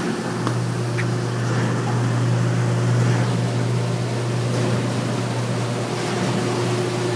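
Potato washing machine running: a steady electric-motor hum under an even rushing noise from the machine's working sections.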